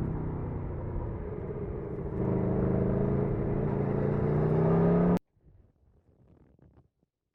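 Aprilia Tuono motorcycle engine running with its revs easing. About two seconds in, the engine gets louder and its pitch climbs steadily as it revs up. The sound cuts off abruptly a few seconds later, leaving faint background noise.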